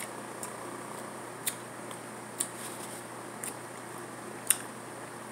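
Sharp, brief clicks about once a second from boiled shrimp being peeled and eaten by hand, over the steady hum of an electric fan.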